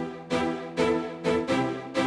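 Instrumental background music with a steady beat of struck notes, about two a second.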